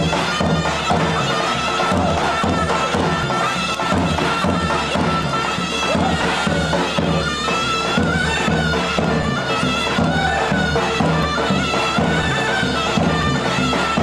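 Traditional folk dance music led by a loud, reedy wind instrument playing a sustained, ornamented melody over a steady, repeating low beat.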